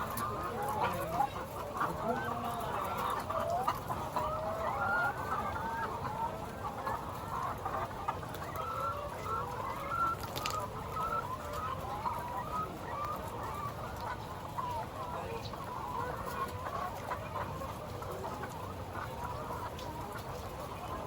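Many chickens clucking and calling at once, a steady, dense chatter of overlapping short calls.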